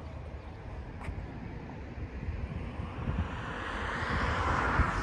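Wind buffeting the microphone outdoors, with the rushing noise of a vehicle growing louder over the last two seconds as it approaches.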